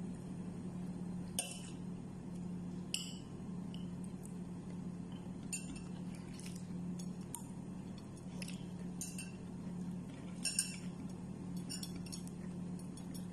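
Eating sounds: scattered light clicks and clinks of food and a plate being handled, a second or two apart, over a steady low hum.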